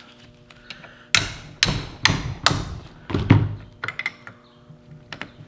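About five sharp metal-on-metal hammer blows, roughly two a second, struck on a line wrench to shock loose a stuck 12 mm flare nut on a power steering rack line. A few light metallic clicks of the wrench follow.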